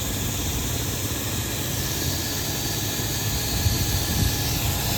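Spraying system of a T40 agricultural drone running on a spray test: its pumps and two centrifugal sprinklers giving a steady hiss over a low running noise. The two sprinklers turn at different speeds, one seemingly forced.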